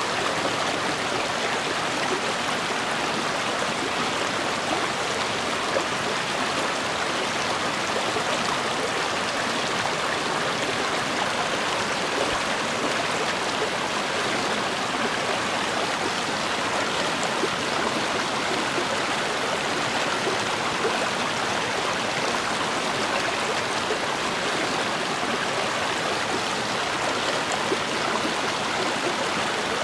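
Steady rushing of a river or stream, water flowing over rocks, even and unchanging.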